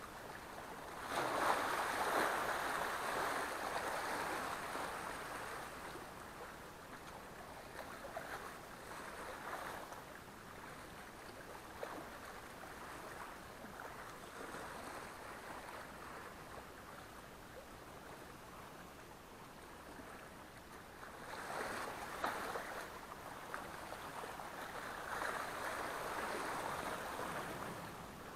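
Small sea waves washing against shoreline rocks, a steady wash that swells loudly twice, about a second in and again near the end.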